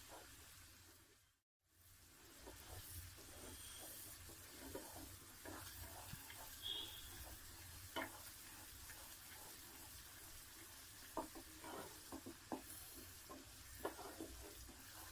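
Faint bubbling of sugar syrup boiling in a metal pot as a wooden spatula stirs it, with scattered light knocks and scrapes of the spatula against the pot. The sound drops out completely for a moment about a second and a half in.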